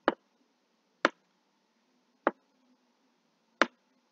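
Four sharp single clicks, irregularly spaced about one to one and a half seconds apart, over a faint steady low hum: computer clicks made while paging through a document.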